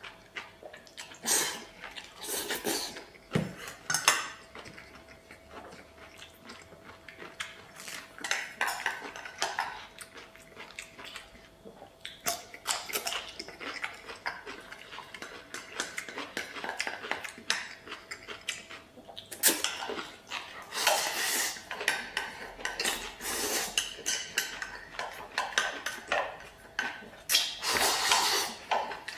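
Close-up eating sounds: stir-fried noodles sucked in and chewed, with wooden chopsticks knocking and scraping against a stainless-steel bowl. Near the end the bowl is tipped up to the mouth and the last of it slurped from the rim.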